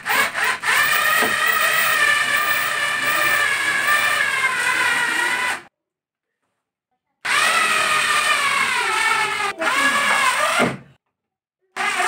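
Cordless electric screwdriver driving mounting screws into the ceiling, its motor whining steadily in two runs of several seconds each, with a brief third burst at the end.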